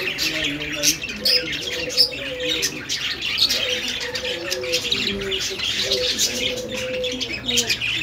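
A flock of caged budgerigars chattering and chirping without a break, many rapid overlapping high chirps and warbles, with a lower wavering warble running beneath.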